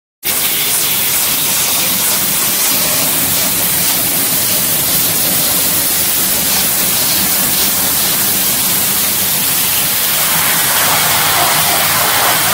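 Steady, loud, hissing noise of packaging-tape production machines running in a factory hall, with a faint low hum beneath. It starts abruptly just after the beginning and holds at an even level.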